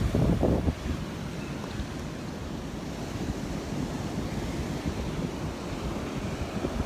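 Rough Gulf surf breaking and washing on the beach, with wind buffeting the microphone, heaviest in the first second.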